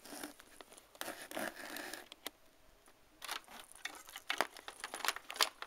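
Handling noise from plastic Littlest Pet Shop figures moved by hand close to the microphone: a scatter of light clicks, taps and scrapes, with a short quieter pause a little past two seconds in.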